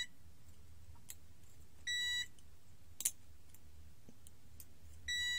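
ANENG Q1 multimeter's continuity buzzer beeping with a steady high tone, once briefly about two seconds in and again near the end, as the probe touches a coil that is shorted: the beep signals a short circuit. Two sharp clicks come in between.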